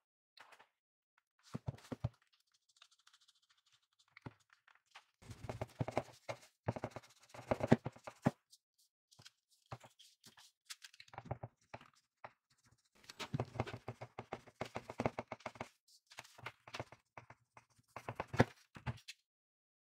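A clothes iron is rubbed and pressed back and forth over paper on a small circuit board on a tabletop, with paper handling in between. It comes in irregular bursts of scraping, rustling and light knocks.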